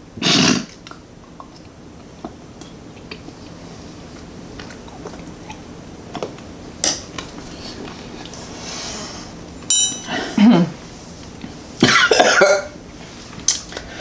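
Coughing and throat clearing from people who have just swallowed spoonfuls of very hot sauce: one short cough about half a second in, then a run of coughs in the last four seconds.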